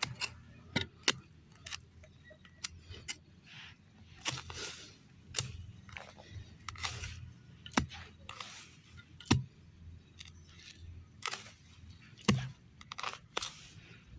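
Garden harvesting by hand: irregular rustling and crackling of plants with sharp clicks and taps.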